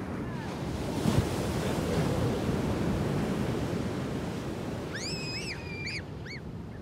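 Ocean surf: a wave breaking on the beach, its rush swelling about a second in and then slowly fading.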